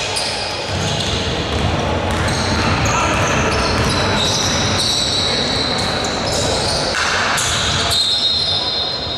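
Indoor basketball play echoing in a large gym: the ball bouncing on the hardwood court, sneakers squeaking in short high-pitched chirps, and players calling out.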